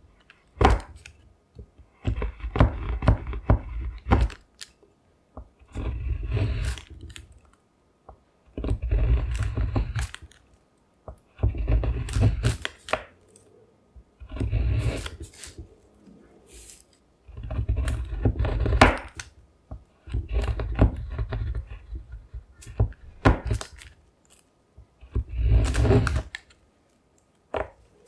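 Chef's knife chopping a bar of chocolate into shavings on a parchment-covered wooden cutting board. About ten bursts of quick cuts, each lasting one to two seconds, with short pauses between; each stroke pairs a low knock of the blade on the board with a crisp crack of the chocolate.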